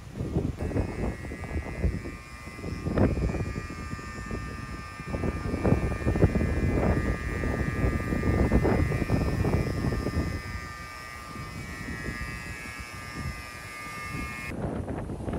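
Storm wind gusting across the microphone, rumbling in uneven surges. A steady high buzzing tone sits over it from about half a second in until near the end.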